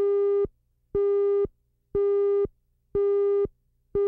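Countdown leader beeps: a steady electronic tone sounds for about half a second once every second, ticking off the numbers of the countdown before the program.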